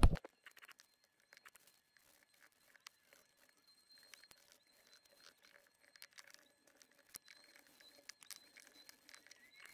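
Faint, scattered light clicks and rustles of hand work as wood dye is applied to a wooden hatchet handle.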